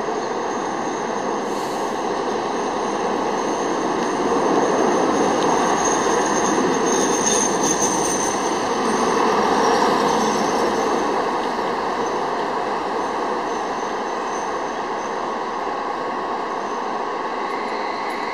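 Regional multiple-unit passenger train running into the station and passing close by, a steady rumble of wheels and running gear that swells as it goes past. A thin high wheel squeal rings out about seven to eight seconds in.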